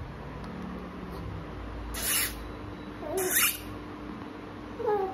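Infant making three short, breathy squeals and coos, the last one falling in pitch.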